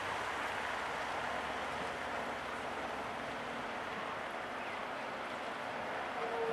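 Steady noise of the JCB telehandler's diesel engine and hydraulics working as it lifts a bucket of soil up over a tipper truck, with a brief high whine near the end.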